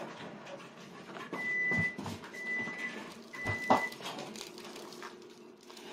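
Three electronic beeps at one steady pitch, each about half a second long and roughly a second apart, with a couple of faint knocks.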